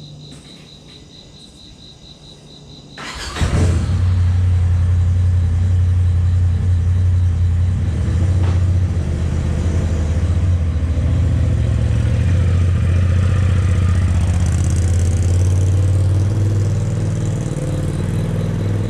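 Crickets chirp faintly, then about three seconds in an engine starts up and runs loudly and steadily with a deep drone.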